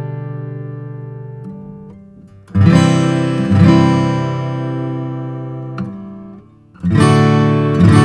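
Martin custom 000 12-fret quilted-maple acoustic guitar strummed, each chord left to ring and slowly fade. Fresh strums come about two and a half seconds in, again a second later, and twice near the end.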